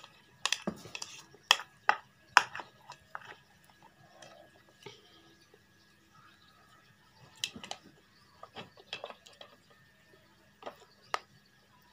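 Noodle-eating sounds: sharp clicks of a utensil against a bowl, with chewing and slurping. The clicks come in clusters, a quicker run near the start and another after a quieter stretch in the middle.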